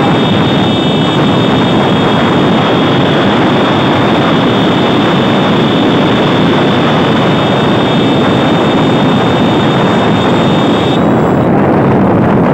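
Loud steady rush of wind on the microphone mixed with a motorcycle engine running, heard from a moving motorcycle. A thin high whine sits over it and stops near the end.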